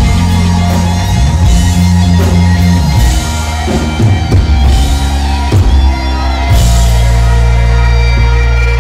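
A live rock-funk band playing loud, with electric guitar, bass guitar and drum kit. Heavy low chords are held for a few seconds, then a choppier stretch of short hits, then a long held chord near the end.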